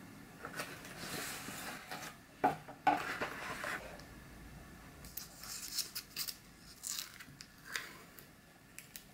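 Hands handling a small plastic umeboshi cup: a rustle and two sharp knocks on a wooden table, then a run of short crinkles and crackles as the thin plastic lid is peeled back.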